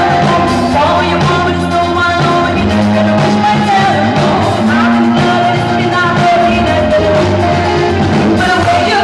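Live band music, played loud: a female singer sings into a microphone over drums and guitar with a steady beat.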